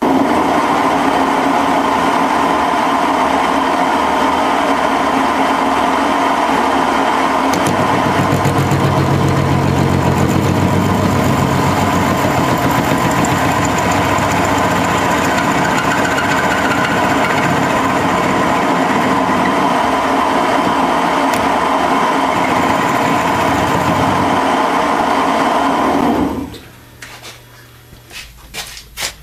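Boxford metal lathe running steadily while an indexable insert faces off the end of a hardened tool-steel bar. It stops about 26 seconds in, followed by a few short clicks.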